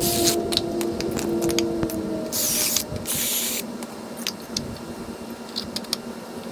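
Power drill boring through stacked wooden supports: two bursts of hissing cutting noise over a motor hum that stops about three seconds in, then scattered clicks and knocks.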